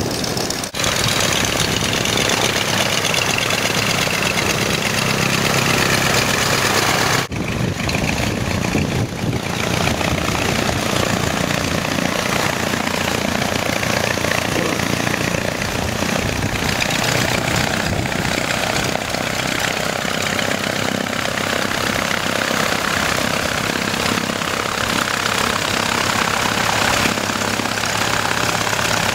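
Small piston engine of a replica PV8 Eastchurch Kitten biplane running steadily on the ground, broken off briefly twice in the first seven seconds.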